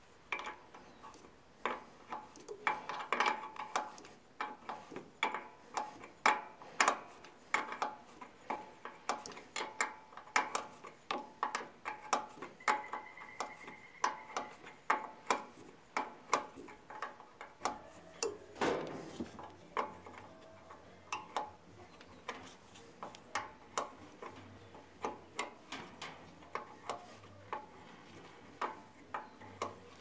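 Ratcheting wrench clicking as a nut is worked loose, with the clicks coming irregularly at about one to three a second. A brief, louder scrape comes about two-thirds of the way through.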